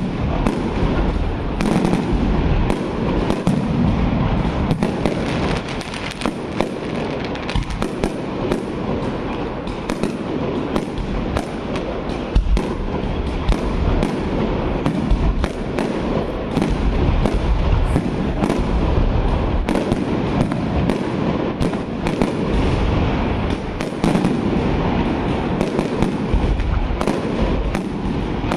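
Fireworks display going off without a pause: rapid, overlapping bangs and crackles over a steady hiss of burning effects.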